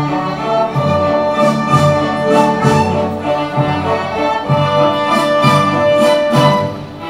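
Instrumental background music with held chords that change every second or so, and a few light percussive hits.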